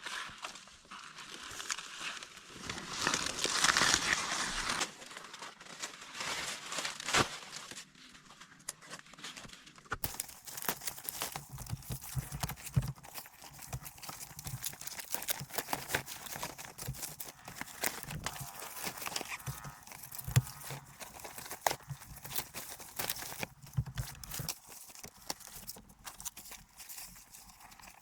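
Rustling and crinkling for the first few seconds, like grass or leaves being handled. Then, after an abrupt change about ten seconds in, a long run of irregular light knocks and clicks, some with a dull thud.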